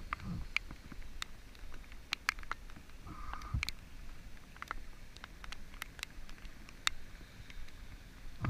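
Raindrops tapping close to the microphone: scattered, irregular sharp ticks over a low wind rumble.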